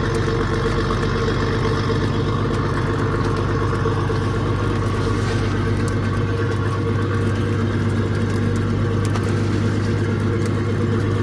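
Engine of a motorised fishing boat running steadily at an even speed, a constant low drone.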